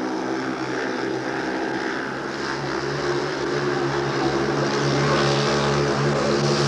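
Speedway motorcycles' single-cylinder racing engines running together in a steady drone, getting somewhat louder about halfway through.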